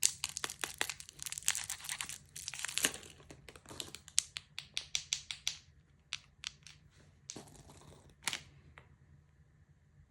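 Candy wrapper being crinkled and torn open by hand: dense crackling for the first few seconds, then a quick run of sharp crinkles that thins out to a few last ones near the end.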